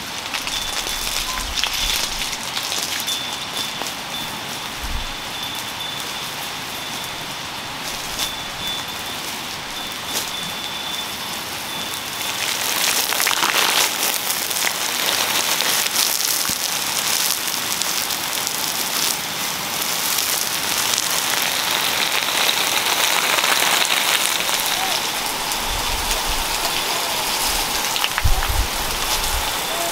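Water from a garden hose spraying onto soil and young seedlings: a steady rain-like patter that grows louder about halfway through.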